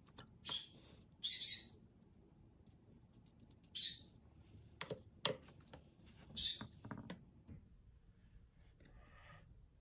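Paintbrush strokes scratching across paper: four short, quiet scrapes, with a few light taps of the brush about halfway through.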